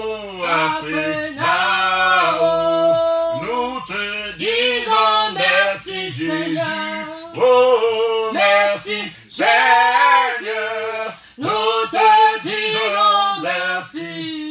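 A man singing unaccompanied, with held notes and slides in pitch between them.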